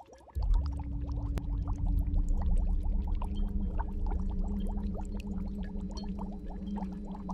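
Liquid bubbling and popping in a fog-covered pot, many small bubbles in quick succession. About half a second in, a loud low steady hum comes in under the bubbling and holds.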